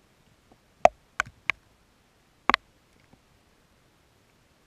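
Raindrops striking the camera: four sharp, single taps at irregular intervals in the first half, against near-quiet background.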